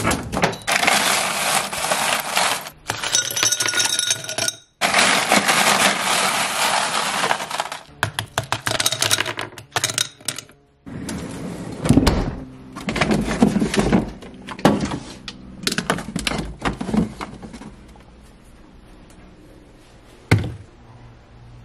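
Ice cubes rattling and clattering as they are scooped out of a freezer ice bin, then dropping into a glass and clinking and knocking against it, with some cubes spilling onto the counter. A single sharp knock near the end.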